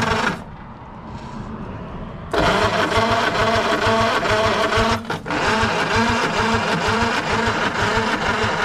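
Starter cranking the 1948 Diamond T pickup's flathead six with a fast, even chugging, in a short burst at the start and then a long run from about two seconds in, briefly interrupted around five seconds. The engine does not catch, which the owner puts down to too little compression to fire.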